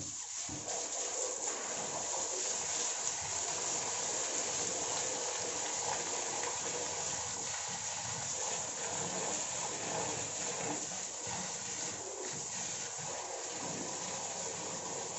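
Water running steadily from a hose with uneven splashing, rinsing dirt off washing machine parts.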